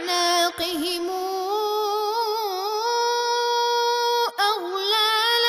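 A reciter's voice chanting the Quran in a drawn-out melodic tajwid style. It holds long vowels that waver and turn in pitch, with brief breaks about half a second in and near the end.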